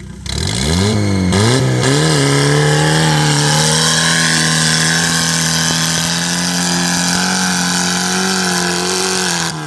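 Off-road buggy engine revving hard as the buggy pulls away, its pitch climbing in a couple of quick steps through the gears. It then runs at high, steady revs under load and eases off near the end.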